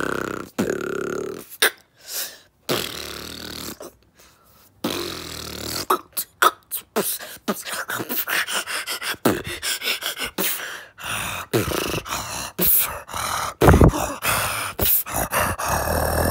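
Beatboxing: mouth-made kick, snare and click sounds with buzzing bass tones. A short pause comes about four seconds in, then a fast, dense rhythm from about six seconds in.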